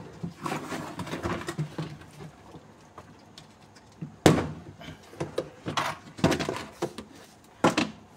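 Hands handling hard plastic tubs and a plastic box: scuffing and shuffling, then a few separate knocks, the loudest about four seconds in.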